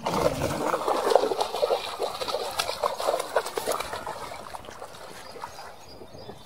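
A hooked fish thrashing and splashing at the water's surface as it is pulled in on a fishing pole. The splashing dies down about four seconds in, when the fish is lifted from the water.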